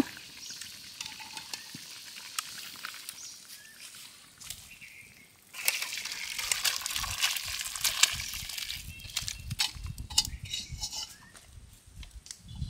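Water sloshing and splashing, faint at first and suddenly louder about five and a half seconds in, breaking into scattered short splashes and knocks near the end.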